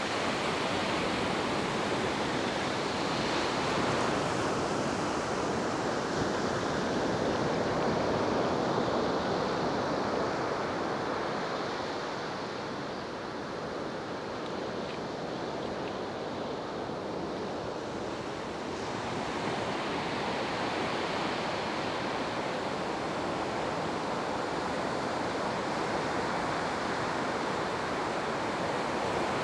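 Steady rushing of ocean surf breaking on a sandy beach, mixed with wind, easing off for a few seconds about halfway through and then building again.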